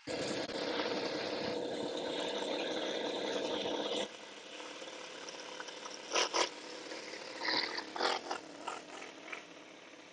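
Quarter-scale model Conley clone V8 engine running, set very rich, loud and steady for about four seconds before dropping away sharply. In the second half it is quieter, with several short loud bursts, revving as the model pulls away.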